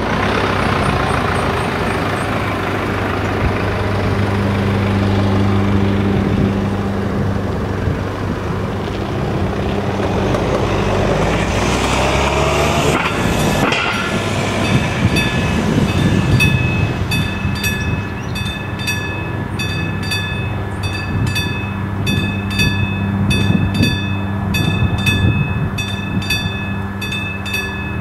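A road vehicle's engine runs and drives off, its pitch rising and falling. About halfway through, the level crossing's classic warning bell starts ringing in quick, even strokes, about two a second, as the crossing activates for an approaching train. A low engine hum continues underneath.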